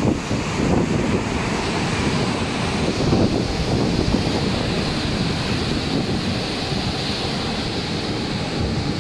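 Rough sea churning and breaking in whitecaps and foam, with strong wind rumbling on the microphone; a steady rushing noise with no let-up.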